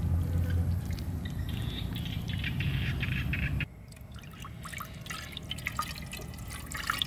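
A low rumble for the first half, then a thin stream of water poured into a basin of water, splashing steadily from a little past halfway.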